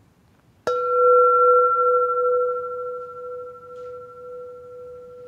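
A singing bowl struck once, about a second in, then ringing on with a low main tone and a higher overtone that slowly fade, the low tone wobbling slightly.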